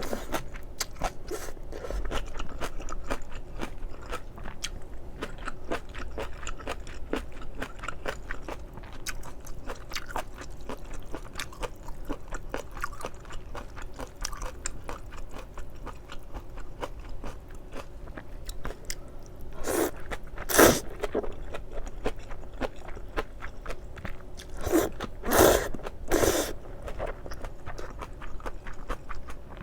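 Close-miked chewing of stir-fried octopus and thin wheat noodles: steady wet chewing with many small mouth clicks, and a few louder, longer mouth sounds about two-thirds of the way in and near the end.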